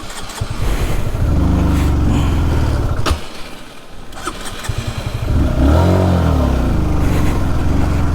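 Honda CBR150R's single-cylinder engine running on a stony uphill track, dying away about three seconds in after a click, then running again with a rev about five seconds in. The bike is stalling on the rough climb.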